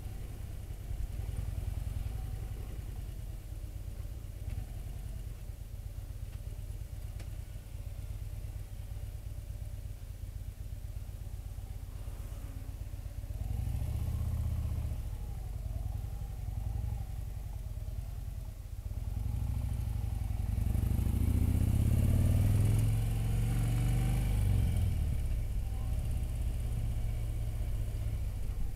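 Touring motorcycle engine heard from the rider's seat, running steadily at low street speed. It picks up twice: briefly about halfway through, then longer and louder a few seconds later, rising in pitch with wind noise growing as the bike gains speed.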